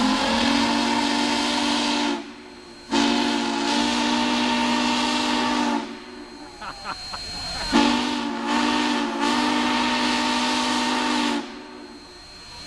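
Union Pacific No. 844 4-8-4 steam locomotive's whistle blowing three long blasts separated by short gaps, each a steady chord of several tones with a hiss of steam. The first blast is already sounding at the start.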